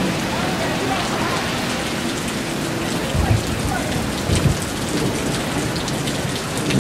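Heavy rain falling steadily in a continuous hiss, with two short low thumps around the middle.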